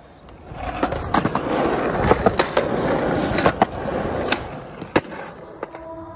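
Skateboard wheels rolling over a concrete sidewalk, the rolling growing louder from about half a second in, with sharp clacks scattered through it as the wheels cross the joints between the slabs. Near the end the rolling fades and a steady humming tone comes in.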